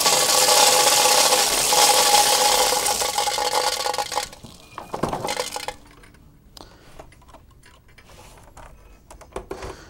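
Old air-dryer desiccant beads pouring out of an ozone generator's dryer chambers into a plastic-lined trash can: a steady hiss of streaming beads for about four seconds, then thinning to scattered clicks and rattles as the last beads drop.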